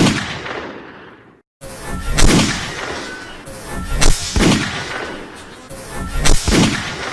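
Three heavy booming hits about two seconds apart, each with a long fading tail, like a gunshot or explosion: a dramatized sound effect for a cricket bat swinging at an apple, played over background music.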